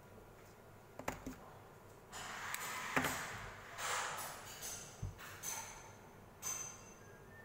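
Handling of paper-quilling materials on a tabletop: a couple of light clicks about a second in, then a run of irregular rustling and scraping as paper strips and small tools are worked.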